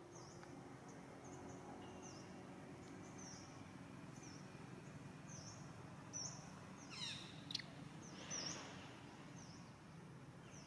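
Quiet outdoor background with short high chirps, each falling in pitch, repeating about once a second. About seven seconds in comes a louder, brief high call, then a short rustle.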